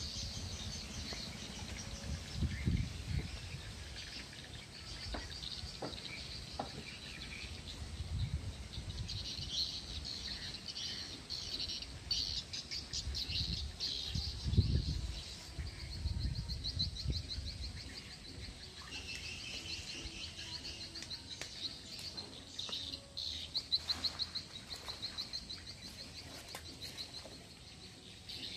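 Birds chirping and trilling in fast repeated phrases, with a few low rumbles underneath.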